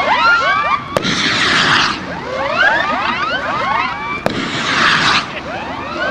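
Hand-made skyrocket fireworks: many whistles overlap, sliding up and down in pitch throughout. A sharp crack comes about a second in and again past four seconds, each followed by about a second of rushing hiss.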